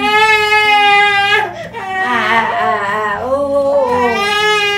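An infant crying in long, high, drawn-out wails: one held for about a second and a half, a shorter wavering cry, then another long wail starting about four seconds in.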